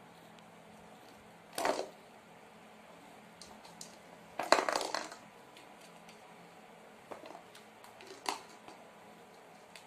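A blue plastic basket and a plastic ball clattering as kittens paw at the ball and climb onto the basket, rocking it against the floor: three short rattles, the loudest about halfway through, with faint taps between.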